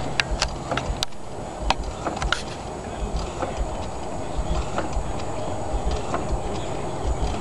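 1903 9 hp J.I. Case single-cylinder steam traction engine idling slowly on low steam pressure, its crank and valve gear turning with a run of light ticks and knocks.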